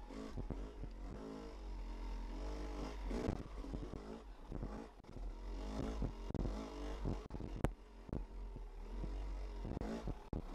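Yamaha YZ250 two-stroke dirt bike engine heard from a helmet-mounted camera, revving up and down in short throttle bursts while climbing slowly over rock ledges. A steady low rumble of wind on the microphone lies under it, and there is one sharp knock about two-thirds of the way through.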